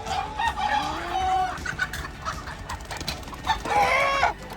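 Chickens clucking, with a short rooster crow near the end.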